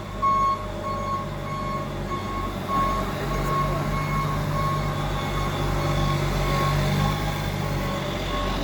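A warning beeper sounding in a steady rhythm, about two beeps a second, over an engine idling, started to warm up and build brake pressure.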